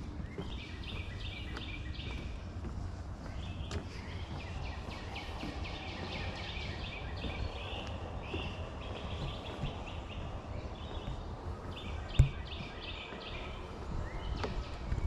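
Birds singing in fast, chattering runs of high notes, over a steady low hum from a lawnmower in the distance. One sharp thump about twelve seconds in.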